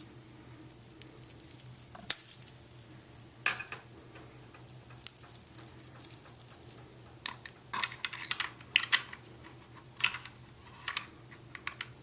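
Irregular small clicks, clinks and light rustles of hands handling a stainless steel watch bracelet and its packaging, over a faint steady low hum.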